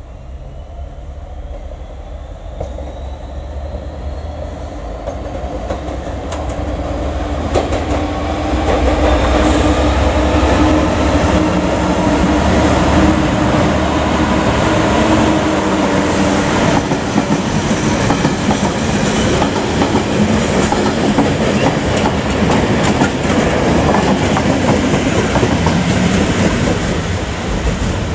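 Diesel-hauled engineering train of ballast wagons passing through at speed. The locomotive's engine note builds over the first several seconds. The wheels then clatter over the rail joints as the wagons go by, with a second Class 66 diesel locomotive on the rear near the end.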